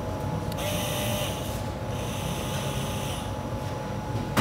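Powered sealant gun whirring in short stop-start bursts as it presses out a bead of black Sikaflex-type sealant. A sharp click comes right at the end.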